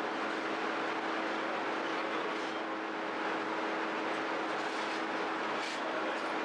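Steady mechanical drone with a constant low hum underneath, running evenly without pauses or strokes, typical of bakery machinery.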